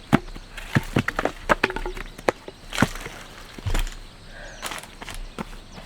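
An irregular run of sharp knocks and cracks, thick and quick in the first three seconds, then a few spaced strokes.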